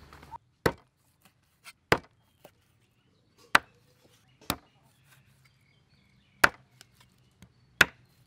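A cleaver chopping raw shark meat into chunks on a wooden chopping board. It makes six sharp knocks as the blade strikes the board, spaced unevenly about one to two seconds apart, with a few faint ticks in between.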